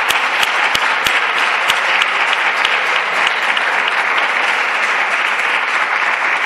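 Deputies applauding in the parliamentary chamber: steady clapping from many hands, with a few sharp single claps standing out in the first three seconds.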